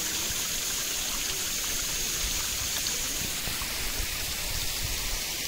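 Steady rushing and trickling of a small stream of water running among rocks.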